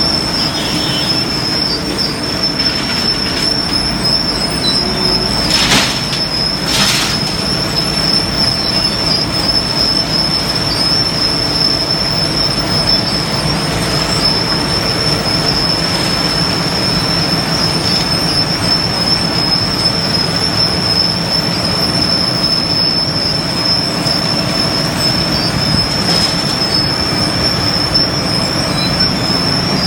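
Heavy construction machinery running steadily with a continuous high-pitched squeal over a low rumble, and two short bangs about six and seven seconds in.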